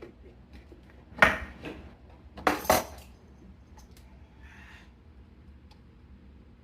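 Sharp clattering knocks of hard objects: a loud one about a second in, a lighter one just after, then two in quick succession, each with a brief ringing tail.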